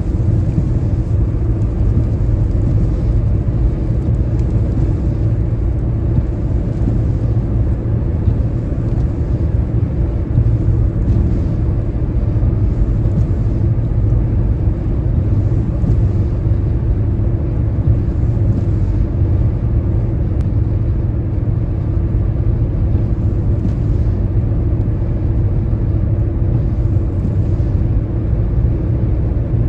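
Car driving along a wet interstate highway: a steady low road and tyre rumble, with a faint hiss that swells and fades every few seconds.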